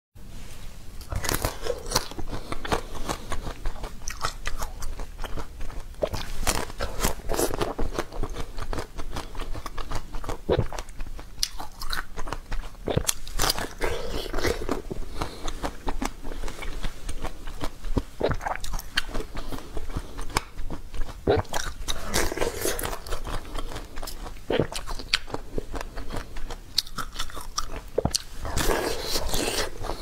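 Close-miked biting and crunchy chewing of watermelon-shaped slices: one bite after another, each followed by a run of crunches and clicks.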